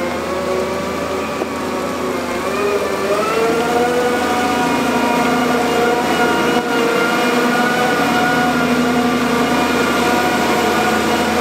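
Engine of heavy construction machinery running, rising in speed about three seconds in and then holding steady at the higher speed.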